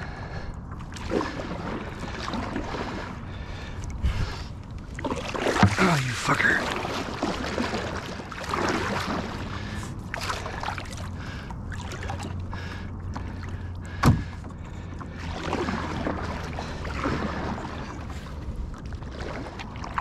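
Paddling a canoe: irregular paddle strokes, water splashing and sloshing against the hull, with one sharp knock about 14 seconds in.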